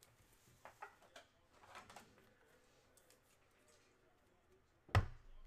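Faint clicks and handling noises, then one sharp knock about five seconds in, the loudest sound.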